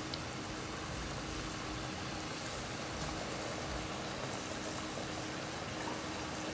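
Food deep-frying in a wok of hot oil: a steady, even sizzle of bubbling oil.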